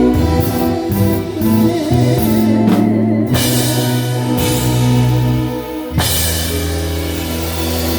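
Live band playing in rehearsal: drum kit, bass and other instruments with a singer. About six seconds in the music changes to a held low note.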